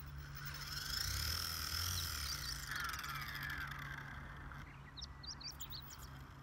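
XK K110 micro RC helicopter's electric motors and gears whining as its rotors spin, the whine gliding up and down in pitch for a few seconds over a steady low hum. It is an unusual noise that the pilot cannot identify. Birds chirp briefly near the end.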